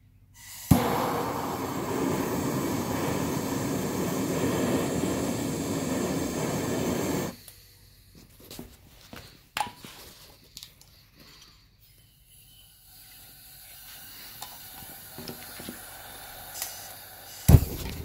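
Propane hissing out of a small furnace's burner in a loud, steady rush that starts suddenly and cuts off sharply about seven seconds in. A sharp, loud thump comes near the end.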